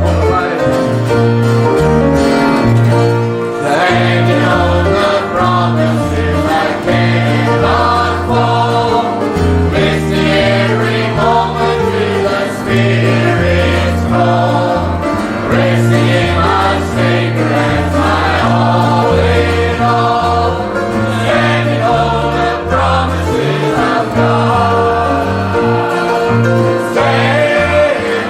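A choir singing a gospel song over instrumental accompaniment, with bass notes changing about once a second.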